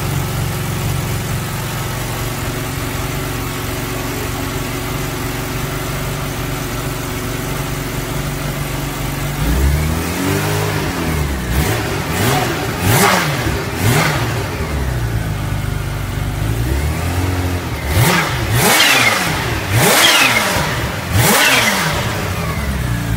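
Kawasaki Ninja H2 Carbon's supercharged 998 cc inline-four idling steadily, then revved in repeated throttle blips from about ten seconds in, each one rising and falling in pitch.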